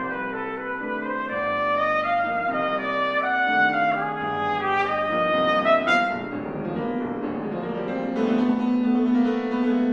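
Trumpet with grand piano accompaniment, the trumpet playing a phrase that climbs note by note to a high peak about six seconds in. The trumpet then drops out and the piano carries on alone with held chords.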